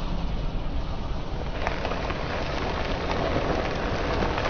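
Car tyre rolling slowly onto snack packets and loose crunchy snacks on asphalt: plastic crackling and crunching starts about one and a half seconds in and grows louder near the end, over the low rumble of the car.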